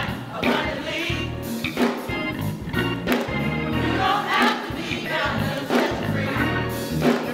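Gospel choir singing with a band accompanying, bass notes pulsing steadily underneath.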